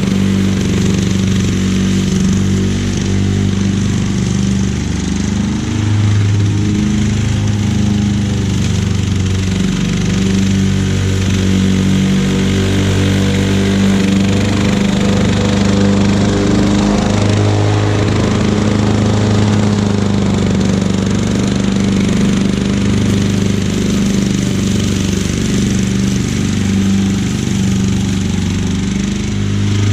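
Lawnboy M series walk-behind mower's two-stroke engine running steadily under load while mowing grass into its bag, its pitch wavering slightly as the load changes.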